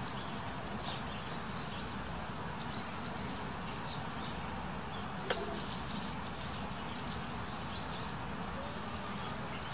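Small birds chirping repeatedly in short, high notes over a steady outdoor background noise, with one sharp click a little past five seconds in.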